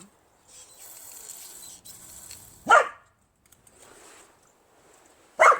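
An aerosol can of parts cleaner hisses as it sprays for about two seconds; the can is nearly empty. A dog then barks once, loudly, and barks twice more near the end.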